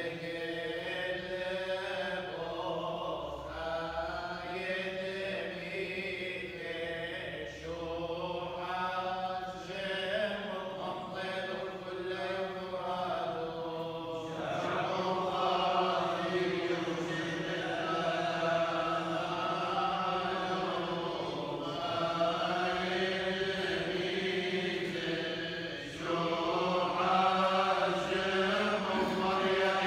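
Group of men's voices chanting Chaldean funeral prayers together, unaccompanied, in long sung phrases. The chant grows louder about halfway through.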